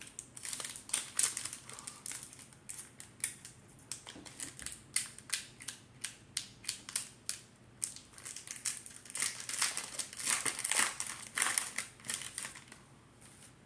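Foil wrapper of a Pokémon trading-card pack crinkling and crackling in the hands while it is opened, a quick run of sharp crackles that comes thickest near the end and then stops.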